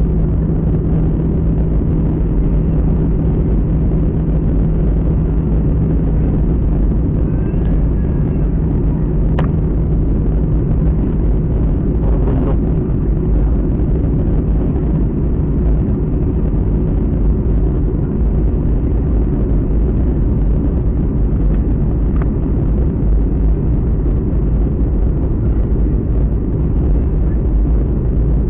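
Steady, loud rumble of an airliner's engines and airflow, heard from inside the passenger cabin. A steady low hum runs under it and fades out about nine seconds in.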